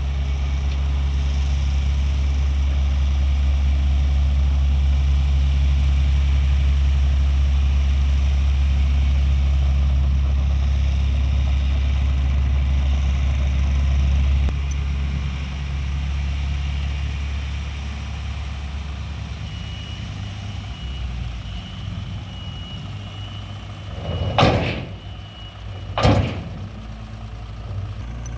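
Tipper truck's diesel engine running steadily at raised revs while the body is tipped, dropping noticeably about halfway through. Near the end there is faint intermittent high beeping, then two loud bangs about a second and a half apart.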